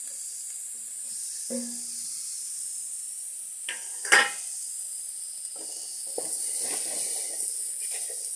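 Corn kernels sizzling in a hot metal pot, with a single sharp metal clank about four seconds in. Near the end comes a wooden spoon stirring and scraping through the kernels.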